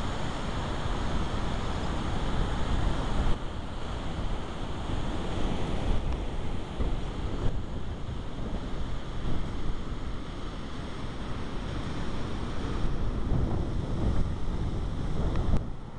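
Wind buffeting the microphone: a continuous low rushing noise that rises and falls in uneven gusts.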